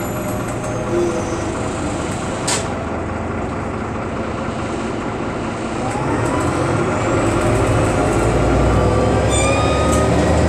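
Irisbus Agora L articulated city bus heard from inside the cabin: engine and drivetrain running under steady road noise, with a sharp click about two and a half seconds in. From about six seconds in it gets louder and a tone rises in pitch as the bus picks up speed.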